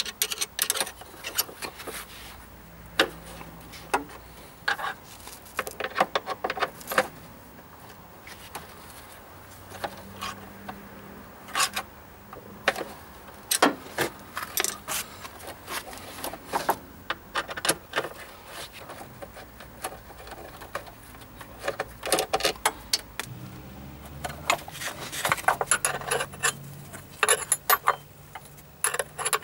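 Metal hand tools clinking and clicking on the mounting bolts of the auxiliary drive belt's plastic cover as they are undone. Scattered sharp clicks, with quicker runs of clicks near the end.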